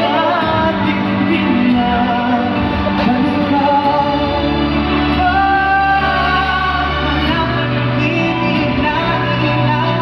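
Live pop ballad at a concert sound check: singers over band backing, with held bass notes and sustained vocal lines, echoing in a large hall.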